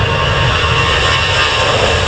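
Jet airliner engines running loud and close, a steady rumble with high whining tones over it.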